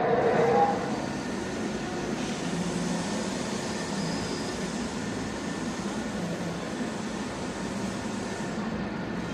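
Steady rumbling, whirring mechanical noise from an animatronic Kentrosaurus's drive motors as it slowly moves its head and tail.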